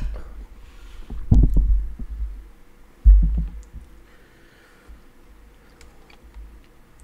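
Handling noise at a computer desk: two dull low thumps, about a second and a half in and again about three seconds in, then scattered light clicks like keys and a mouse being pressed.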